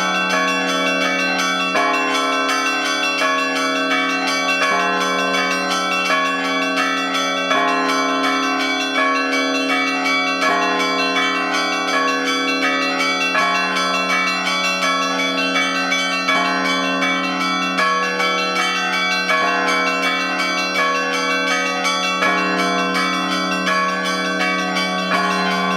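Russian Orthodox church bells rung all together by one ringer. A deep bell is struck about every second and a half under a continuous, rapid pattern of smaller bells.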